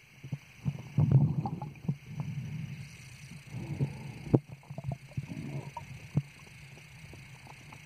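Underwater audio from a submerged camera: muffled rumbling and sloshing of water with scattered knocks and clicks. There is a loud burst of rumbling about a second in and a single sharp knock about halfway through, over a faint steady hiss.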